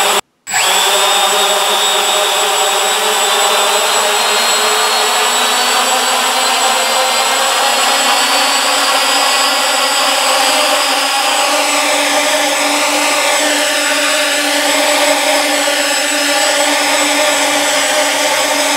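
Walkera Furious 320 quadcopter's brushless motors spinning on the table, a steady electric whine that cuts in about half a second in. From about halfway the motor pitch wavers up and down repeatedly.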